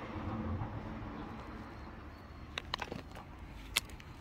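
A quick cluster of light clicks and knocks about two and a half seconds in, and one sharper click near the end, over a low steady background hum.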